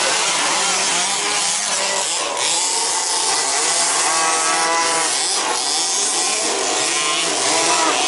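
A pack of 2WD remote-control buggies racing on a dirt track, several motors at once rising and falling in pitch as they accelerate and brake.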